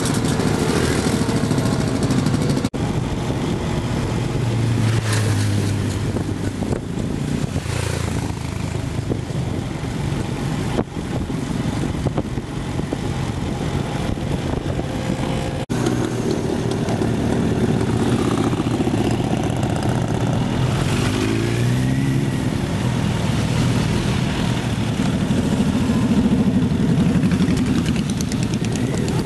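A pack of motorcycles riding together, their engines running steadily, heard from a bike within the group. Engine pitch rises and falls as riders speed up and ease off.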